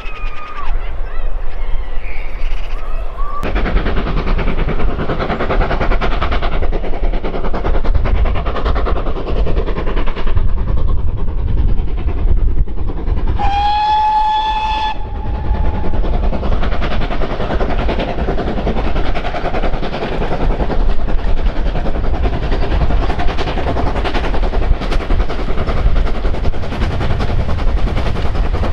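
Steam locomotive running by with a continuous heavy rumble, giving one short whistle blast about thirteen seconds in that lasts about a second and a half.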